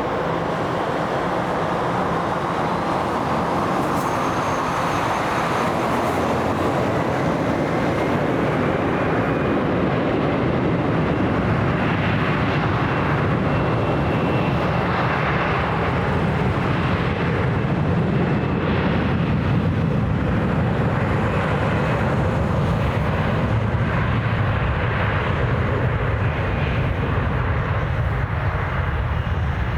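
Jet airliner engines running, a steady loud rush of noise with a faint high whine on top.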